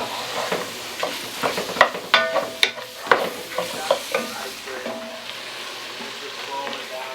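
Chopped onion, bell pepper and celery sizzling in a dark roux, while a spoon stirs and scrapes the pot. Irregular clicks and scrapes come through it, a few of them ringing briefly.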